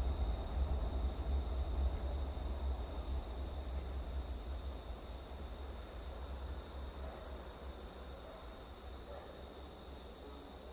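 A night chorus of crickets trilling steadily in several high pitches, over a low rumble that slowly fades away.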